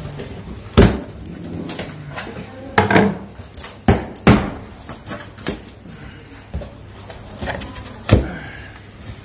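Cardboard carton being opened by hand: the flaps and taped top pulled and bent apart, giving irregular sharp knocks and cardboard rustling, about six louder knocks in all.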